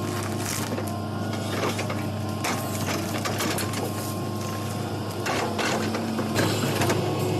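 A machine engine running steadily, with scattered short cracks and knocks.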